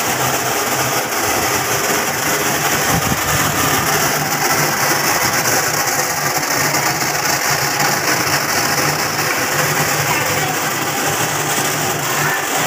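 Cashew-processing machinery running steadily: a loud, even machine noise with a low hum underneath.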